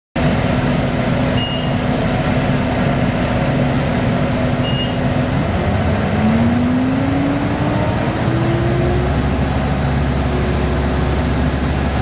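Inside a moving 1998 Orion V transit bus: its Detroit Diesel Series 50 engine and Allison B400R automatic transmission running loudly under a steady hiss. About five seconds in, the steady engine tone drops away, and a lower tone then climbs steadily as the bus gathers speed.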